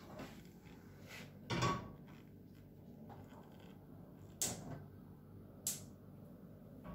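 A few household knocks over a low background: a dull thump about a second and a half in, then two sharp clicks a little over a second apart later on.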